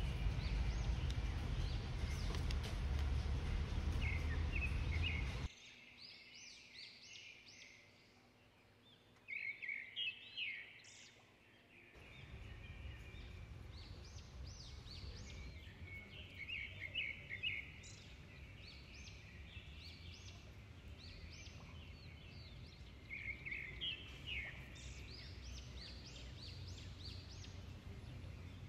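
Small birds chirping and trilling in quick runs of high notes, over a steady low outdoor rumble that drops away about five seconds in and returns about twelve seconds in.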